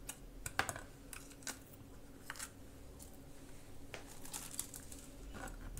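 Kitchen knife slicing a red bell pepper on a plastic cutting board: faint, irregular knocks of the blade through the flesh onto the board.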